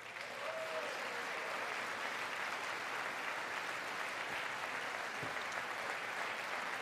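A large audience of lawmakers in a legislative chamber applauding, a steady, sustained round of clapping.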